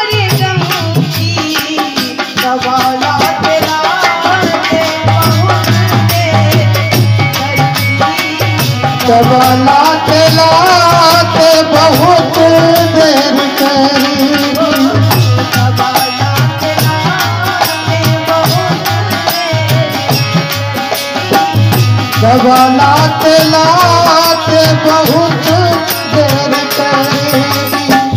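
Live Indian devotional bhajan music: tabla keeps a steady rhythm under a melody line that bends and glides in pitch.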